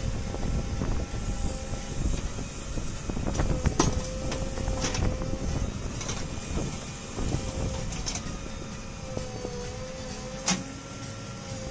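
JCB 3DX backhoe loader's diesel engine running under working load with a steady whine that wavers slightly while the backhoe digs and swings its bucket. Several sharp metal clanks from the arm and bucket, the loudest about ten seconds in.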